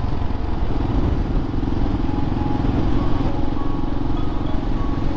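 Motorcycle engine running steadily while riding, with a rush of wind across the microphone.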